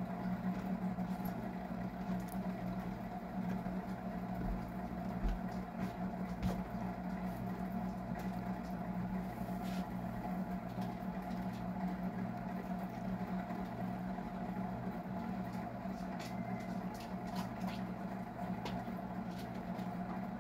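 Steady low mechanical hum, like a motor or appliance running, with a few faint light clicks.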